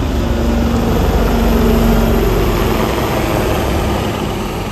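Two military helicopters flying past: a steady low rotor and engine drone that swells to its loudest about two seconds in, then slowly fades, with a held hum in the first two seconds.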